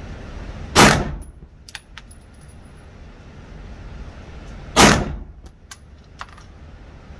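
Glock 17 9 mm pistol fired twice, about four seconds apart, each shot a sharp crack with a short echo off the walls of an indoor range. A few light clinks follow each shot.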